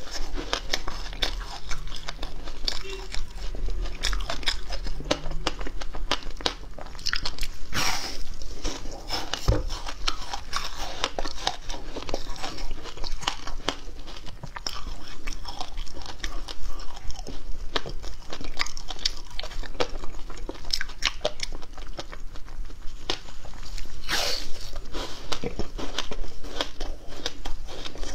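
Frozen passion fruit ice being bitten and chewed, a continuous crackling crunch of ice breaking between the teeth. Two sharper cracks stand out, about 8 seconds and 24 seconds in.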